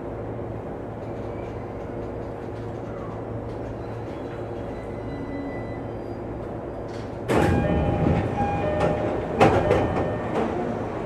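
Electric commuter train standing at a platform, heard from the cab: a steady low hum from the train's equipment. About seven seconds in, a sudden louder clatter of knocks and short tones starts and goes on to the end.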